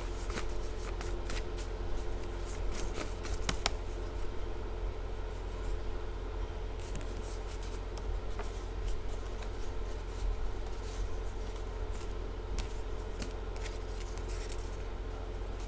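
A deck of tarot cards being shuffled and handled by hand: scattered soft clicks and snaps of card stock, over a steady low hum.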